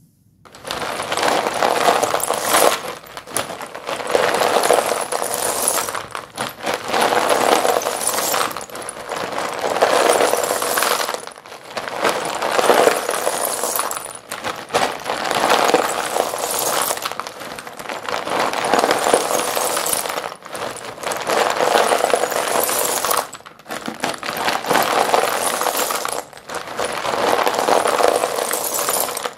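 Heap of Doms white dustless chalk sticks clattering and clinking as hands scoop them up and let them pour back into a plastic basin, in surges about every three seconds.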